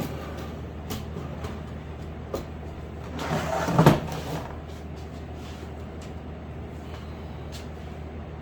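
Handling noises as a full-size typewriter is brought in and set down: a few light knocks, then a scrape building to a heavy thud about four seconds in.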